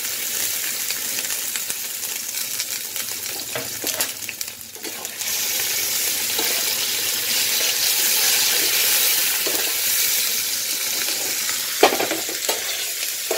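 Onion, ginger, green chilli and poppy-seed paste sizzling in hot mustard oil in a kadai, stirred with a metal spatula. The sizzle drops briefly about four seconds in, and the spatula clanks sharply against the pan near the end.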